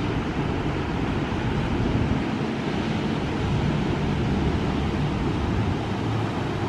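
Steady roar of ocean surf breaking on the beach, with wind buffeting the microphone.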